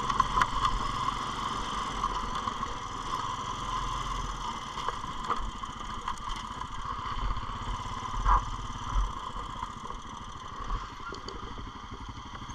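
Honda Foreman ATV engine running steadily as it rides along, with a few brief knocks and rattles.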